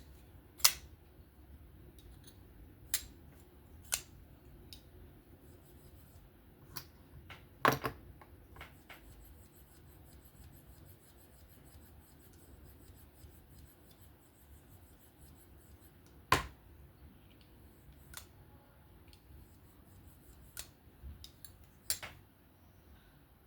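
Sharp, irregularly spaced clicks of a Divo Buzz folding knife being flicked open and snapped shut on freshly fitted Skiff pivot bearings, the strongest about a third and two thirds of the way through.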